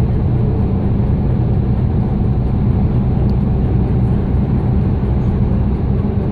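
Steady engine and road drone inside a vehicle cab cruising at highway speed.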